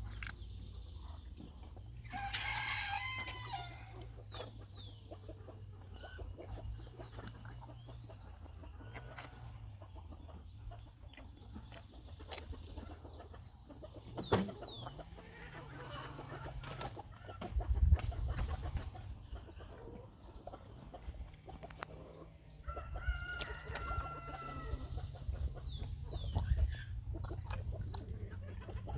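Farmyard chickens clucking, with a rooster crowing a few seconds in and again near the end, and small birds chirping. Low rumbling thumps run underneath, loudest in the second half.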